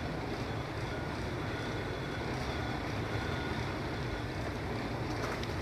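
Steady low rumble and hum of a river cruise motor ship's machinery, heard from inside the ship, with a faint thin whine above it.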